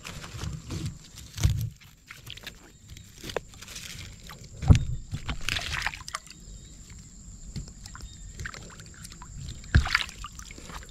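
Water sloshing and splashing as hands pull a hooked fish on a set line through shallow, weedy water. The noise comes in irregular thumps, with the sharpest splash about five seconds in and another near the end.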